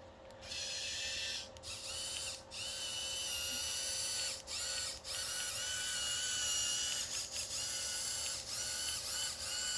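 Small geared electric motor of a remote-controlled searchlight's pan/tilt head whirring with a steady high whine. It stops and restarts briefly several times.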